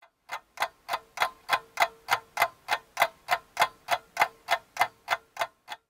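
Ticking sound effect: sharp, evenly spaced ticks, a little over three a second.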